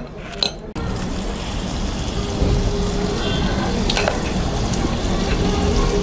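Semolina malpua batter deep-frying in hot oil in a kadhai: after a metal clink about half a second in, a steady sizzle starts suddenly and keeps going.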